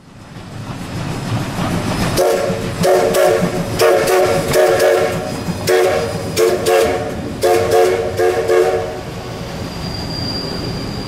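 Taiwan Railway CK124, a C12-class 2-6-2T steam tank locomotive, sounding its steam whistle in four pairs of short toots over the low rumble and sharp beats of the engine working past. A faint steady high whine comes in near the end.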